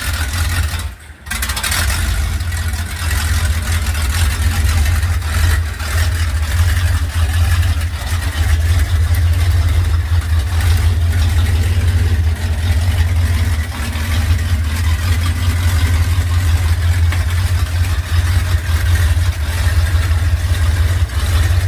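The boat buggy's engine running steadily with a strong low rumble. It dips briefly about a second in.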